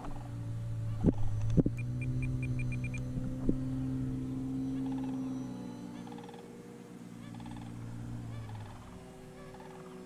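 Value Hobby Seagull RC seaplane's electric motor and propeller droning in flight overhead, its pitch gliding slowly before it fades out near the end. There are a few sharp knocks early on, and a short run of about seven quick high beeps about two seconds in.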